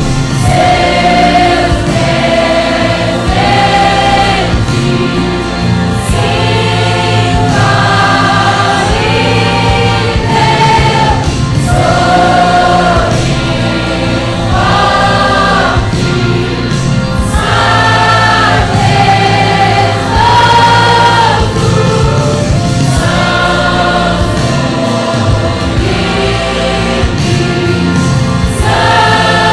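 A choir singing a gospel worship song in held, sustained notes over a steady musical backing.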